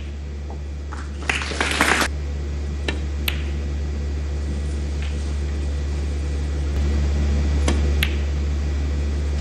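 Snooker balls clicking: sharp single clicks of cue tip on cue ball and ball striking ball, a handful spread through the stretch, over a steady low hum. A short burst of noise comes about a second and a half in.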